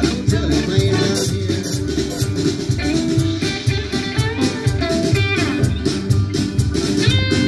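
Live acoustic string band playing an instrumental passage: guitars, banjo and upright bass, with a drum kit keeping a steady, quick beat.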